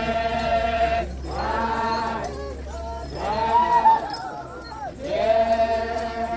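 A group of men chanting in unison as they dance, long held calls of about a second each, repeated with short breaks between them and bending in pitch at their ends.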